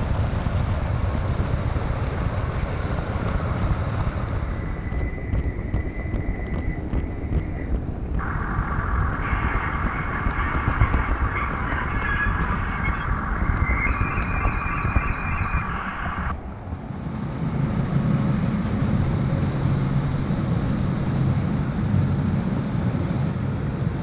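Model train running along the track, heard from a camera riding on it: a steady low rumble from the wheels and motor. Higher-pitched steady tones join in for several seconds in the middle, then drop away.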